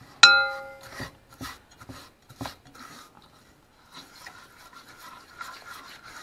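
A spatula stirring a sugar, water and corn-syrup mixture in a saucepan, scraping and tapping against the pan, with one ringing metallic clink about a quarter second in that dies away over about half a second.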